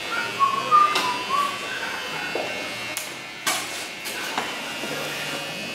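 Soft background music, with a few sharp clicks about one, three and three and a half seconds in.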